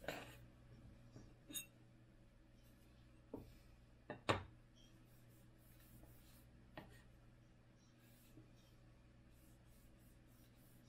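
Faint rubbing as a cloth wipes down a metal 3D-printer bed plate with isopropyl alcohol, with a handful of light knocks as the plate is handled on a wooden bench, the loudest a quick double knock about four seconds in.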